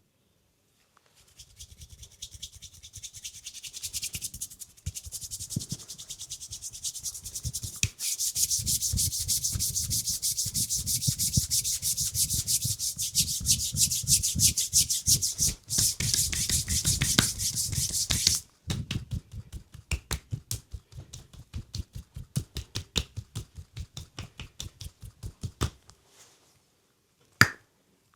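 Hands rubbing fast and hard over the skin of a leg during a massage, a rapid run of friction strokes. It then slows to lighter, separate strokes about four a second, and two sharp snaps come near the end.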